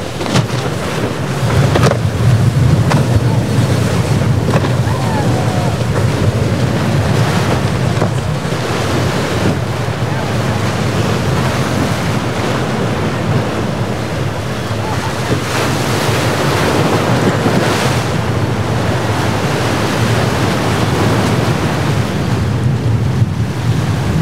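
Wind buffeting the microphone over surf and choppy water, with a boat's outboard engine running underneath as the hull runs through the waves. The wind noise comes in gusts.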